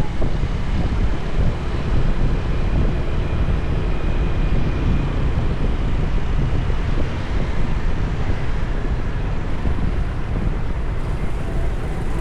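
Steady wind rumble on the microphone over the noise of road traffic.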